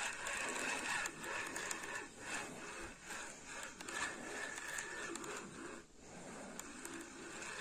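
Scraping and rubbing of a carp rod and reel being handled while a hooked carp is played in.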